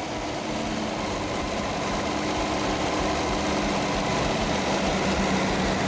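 Classic Lada four-cylinder engine idling steadily on a makeshift single-injector fuel injection system, getting gradually a little louder as its idle is adjusted at the throttle body.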